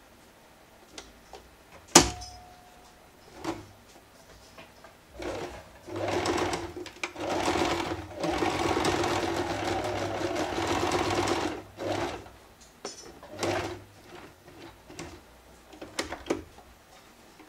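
Electric domestic sewing machine stitching a seam through cotton fabric: a few short runs, then one steady run of about six seconds, the motor hum under the needle's rapid clatter, then another short run. A sharp click about two seconds in is the loudest sound.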